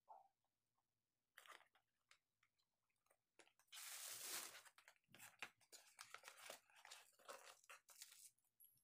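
Cardboard battery packaging being handled and opened: a few light clicks, then a scraping hiss about four seconds in as the white inner box slides out of its printed sleeve. After that comes a run of crinkles and taps as the lid is opened and the packing around the battery is handled.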